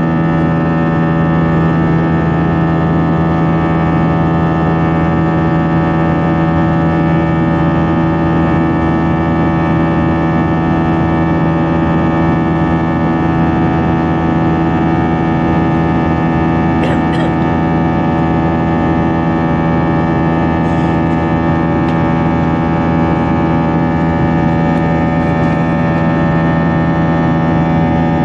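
Airbus A321 jet engines heard from inside the cabin during the climb after takeoff: a loud, steady drone made of several even tones over a rushing noise.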